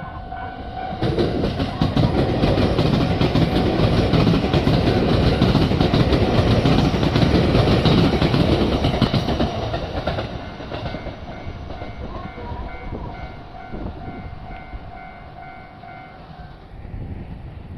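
JR 115-series electric train passing over a level crossing, its wheels running on the rail joints, loudest between about 1 and 10 seconds in, then fading. Throughout, the crossing's electronic alarm sounds a steady ringing tone that turns into a rapid even pulse once the train has gone by, and it stops shortly before the end.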